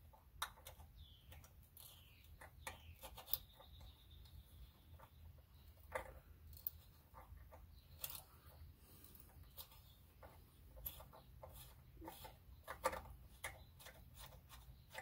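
Faint scattered clicks and short squeaks of a hand tap being turned in a drilled hole in steel with a T-handle tap wrench, cutting a thread and worked back and forth to break the chip.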